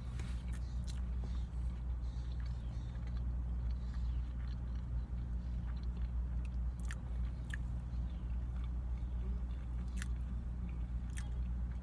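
Close-up chewing and biting of a spicy potato taco, with a few sharp crisp clicks from the mouth and food, over a steady low hum.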